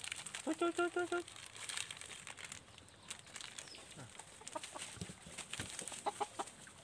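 A hen clucking: a quick run of about five short clucks about half a second in, then a few fainter clucks near the end.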